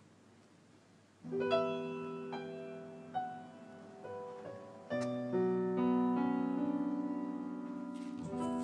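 Soft piano music: after about a second of near silence, a gentle piano melody comes in over held chords.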